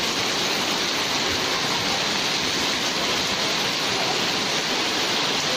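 Heavy downpour falling on tarpaulin awnings and a flooded pavement, with water streaming off the awning edges: a steady, even hiss of rain.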